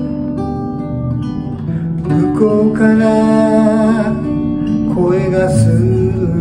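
A man singing a slow Japanese folk song while playing a LAG steel-string acoustic guitar, holding long wavering notes. The low rumble of a passing airplane sits behind the music.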